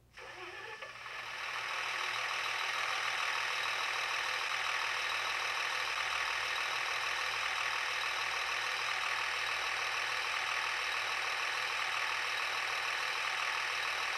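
Sound decoder of a Märklin 37730 model of a DB class 648.2 (LINT 41) diesel railcar playing its diesel engine sound through the model's loudspeaker: the engine starts up, builds over about two seconds, then idles steadily.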